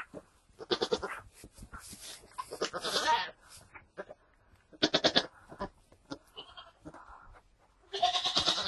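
Goat bleating in four short, wavering calls spread a couple of seconds apart, with fainter calls and rustling between.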